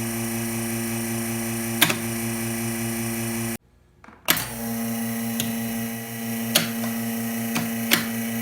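Vacuum pump of a relief-valve vacuum leak tester running with a steady electric hum. It cuts out abruptly for under a second a little before halfway, then runs on, with a few sharp clicks along the way.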